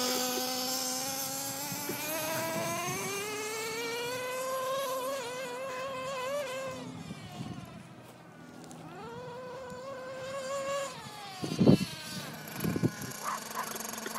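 Small engine of a gas-powered RC truck running, its pitch climbing as it speeds up and wavering, dipping away about seven seconds in and picking up again before it stops around eleven seconds in. Near the end come a couple of loud bumps and a few short yaps from a small dog.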